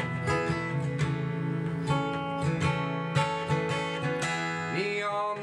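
Steel-string acoustic guitar strummed in a steady rhythm, chords ringing on between strokes, in an instrumental gap between sung lines.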